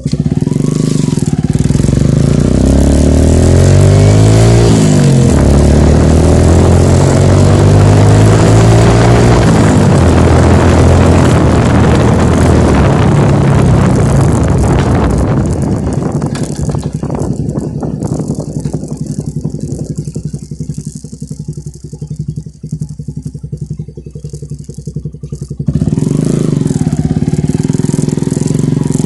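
Yamaha YTX125 motorcycle's single-cylinder engine breathing through an Akrapovic muffler with its silencer insert removed, revved repeatedly: the pitch rises and falls several times, then the engine drops to a quieter, duller running note before jumping back to full loudness near the end.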